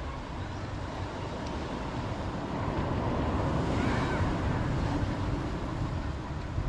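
Ocean surf washing on a rocky shoreline, mixed with wind rumbling on the microphone; the surge grows louder about halfway through.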